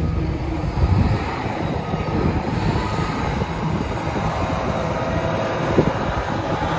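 Volvo A30F articulated dump truck's six-cylinder diesel engine running steadily as the truck drives and turns, with drivetrain and tyre noise. Two brief knocks come through, about a second in and near the end.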